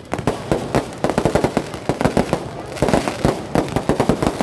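Fireworks going off in a dense, irregular barrage of sharp bangs and pops, several a second.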